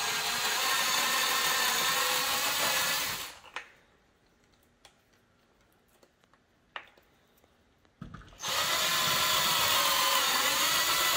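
Cordless drill boring rivet holes through the plastic bumper and canard. Its motor whines steadily in two runs: one of about three and a half seconds at the start, and a second starting about eight and a half seconds in. Between them are a few seconds of quiet with small clicks.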